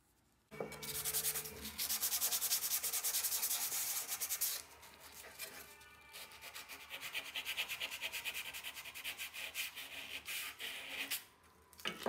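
Rapid back-and-forth rubbing strokes by a gloved hand on the steel blade of a trowel. The strokes are strongest for the first few seconds, ease off briefly about halfway through, then pick up again, and they end with a short knock.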